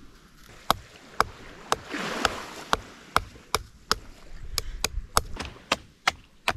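A fixed-blade knife chopping into the husk of a green coconut to open it: a steady series of sharp chops, about two a second, some fifteen strokes.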